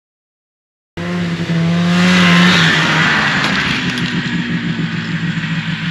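About a second of silence, then an abrupt cut into a 1974 Arctic Cat Lynx snowmobile's fan-cooled 340 two-stroke engine running, swelling louder around two seconds in and then running steadily.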